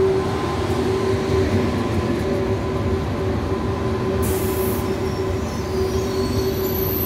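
First-generation KTX (KTX-I) high-speed trainset rolling slowly into a station platform: a continuous rumble of wheels on rail with a steady whine. A short hiss comes a little after four seconds in, and a high-pitched squeal sets in near the end as the train slows to a stop.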